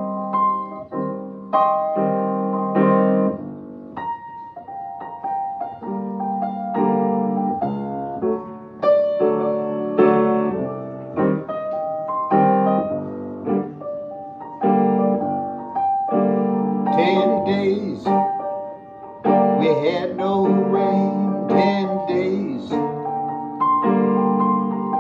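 Yamaha grand piano played with both hands: held chords under a melody, the notes changing every second or two.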